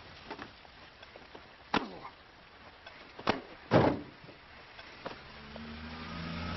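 Three sharp thuds, the last and loudest just before four seconds in, with a few lighter knocks around them. A low steady hum comes up near the end.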